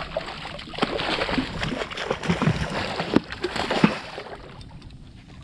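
Hooked redfish thrashing at the water's surface, a rapid run of splashes that dies down about four seconds in.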